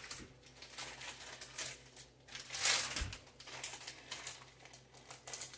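Plastic food-packaging bags crinkling and rustling as they are picked up and handled in the hands, in irregular bursts, with a low bump about three seconds in.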